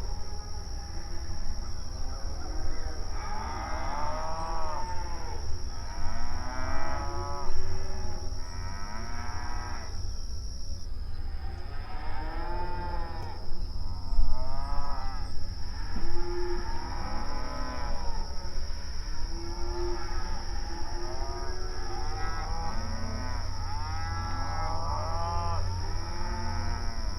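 Several cows mooing again and again, long drawn-out calls that rise and fall and often overlap. A steady low rumble and a faint steady high-pitched tone run underneath.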